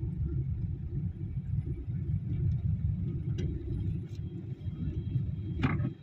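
Steady low rumble inside a vehicle rolling slowly across an airport apron. Near the end a brief, louder higher-pitched sound cuts in.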